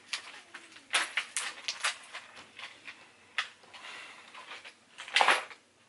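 Handling of chair-assembly hardware and parts: a few light clicks and knocks, then a louder scraping rustle just after five seconds in.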